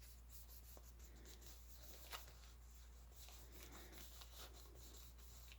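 Near silence with faint paper handling: soft rustles and light taps of paper, with a small click about two seconds in.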